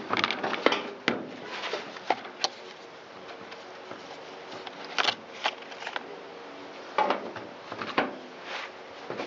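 Light clicks and clatters of a plastic engine cover, screws and a driver being handled while the cover comes off an Echo SRM225 string trimmer, in short scattered bursts: a cluster in the first second or so, more around five seconds in and around seven to eight seconds in.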